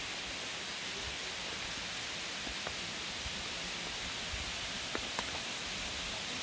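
Rushing water of a waterfall: a steady, even hiss, with a few faint clicks near the middle and the end.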